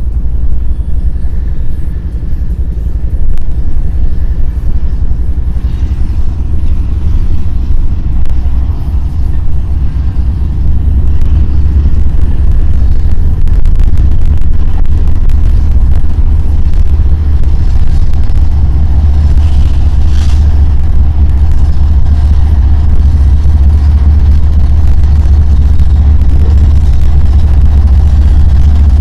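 BNSF freight train's diesel locomotives approaching, a deep engine rumble that grows louder about a third of the way in as they draw near.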